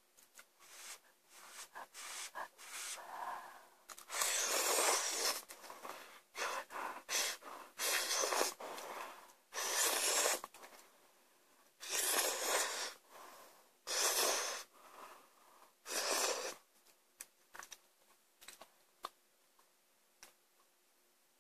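A person slurping instant cup ramen noodles: a run of loud, hissing slurps, some short and some about a second long, starting about four seconds in and ending around two thirds of the way through. Small mouth clicks and smacks come before and after.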